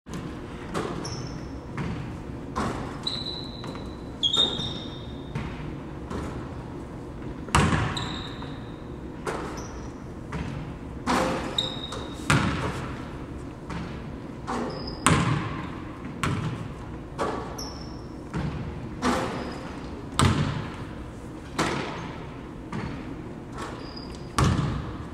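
Basketball bouncing on a hardwood gym floor about once every second or so, each bounce echoing around the large hall, with short high sneaker squeaks in between.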